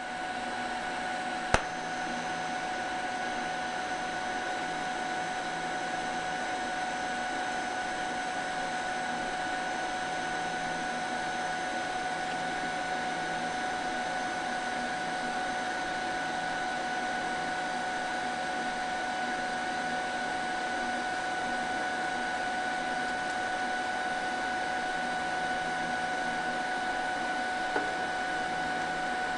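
DC TIG welding arc on quarter-inch mild steel, from a Canaweld TIG AC/DC 201 Pulse-D inverter welder, struck with a sharp crack from the high-frequency start about a second and a half in. It then runs as a steady hiss with a steady high whine.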